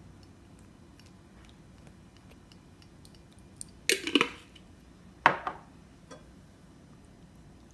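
Kitchenware knocked down on a countertop: a quick double clatter about four seconds in, then a single sharp knock with a short ring a second later. These are the sounds of the glass sauce jar and utensils being put down and picked up.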